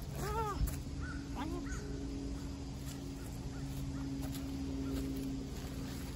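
A few short animal calls, each rising and falling in pitch, the clearest about half a second in and fainter ones around a second or two in, over a steady low hum.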